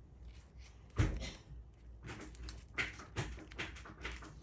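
Origami paper being folded and creased by hand, with short crinkling rustles and clicks. There is a dull thump about a second in, and more crisp creases near the end.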